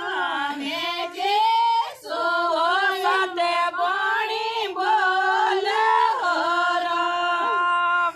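Women's voices singing a devotional folk bhajan unaccompanied, in long held notes with sliding ornaments. The singing breaks off abruptly just before the end.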